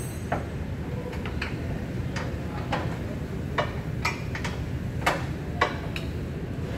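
Irregular sharp metallic clicks and clinks of hand tools and parts being handled during car repair work, about a dozen spread unevenly, over a steady low rumble.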